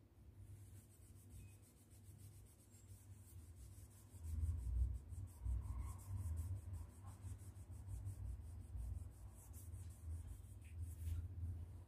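Cloth rubbing back and forth on a painted wall, scrubbing off crayon marks with alcohol. The scrubbing is faint at first and gets louder about four seconds in, as an uneven low rubbing.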